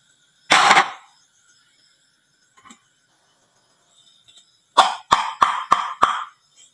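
Glass marbles clattering on a wooden marble run: a short rattle about half a second in, then five quick sharp clacks, each trailing a brief rattle, near the end.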